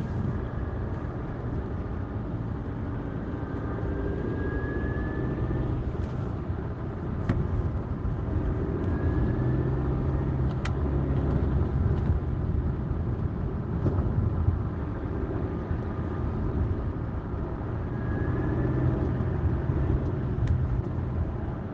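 BMW 420d with its four-cylinder diesel and road noise running steadily at low speed. Over it a thin, high whistle rises in pitch three times; this is the gearbox whistle the owner is recording in fourth gear at 45–50 km/h.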